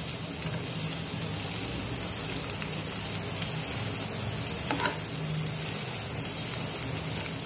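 Boiled potato pieces frying in oil in a non-stick kadhai: a steady sizzle while they are stirred and turned with a metal slotted spoon.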